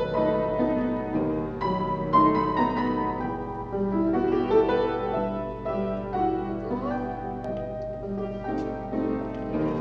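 Piano playing class accompaniment for a ballet barre exercise: sustained chords and melody notes struck one after another without a break.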